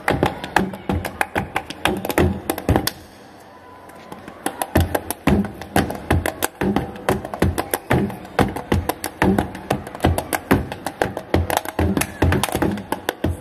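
Flamenco body percussion by three performers: fast rhythmic slaps on chest and body mixed with hand claps, deep thumps under bright cracks. The rhythm breaks off about three seconds in and resumes a second later.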